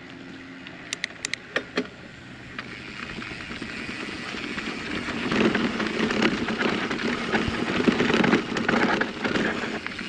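Mountain bike rolling downhill on a dry dirt singletrack: tyre and trail noise with wind on the camera, building as the bike picks up speed and loudest in the second half. A few sharp clicks come about a second in.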